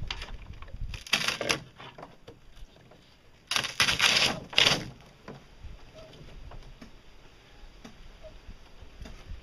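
Freshly laid fiberglass hull shell crackling and scraping as it is pulled away from the form it was laid on, in two bursts, about a second in and a louder one a few seconds later, with light clicks between.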